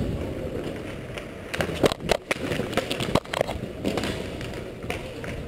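Inline hockey skates rolling over the rink floor, with a flurry of sharp clacks and knocks from sticks and bodies about one and a half to four seconds in.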